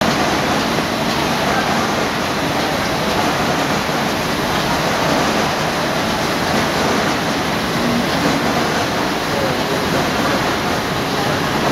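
Mitsubishi Diamond 3000 six-colour sheet-fed offset printing press running: a loud, steady, dense mechanical noise.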